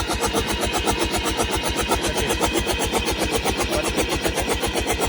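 JCB 448 four-cylinder diesel engine cranking on its starter motor, with an even pulse of about ten beats a second. The engine is being turned over to check the injectors' spray because it will not start; one injector is not spraying properly.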